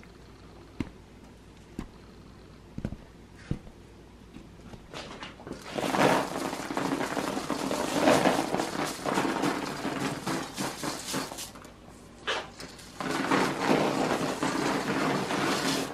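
Goat manure pellets and worms tipped out of a bowl onto paper in a compost bin: a grainy rustling spill in two stretches, starting about six seconds in and again about a second after a short pause. Before that, only a few light clicks and taps as bread is set in by hand.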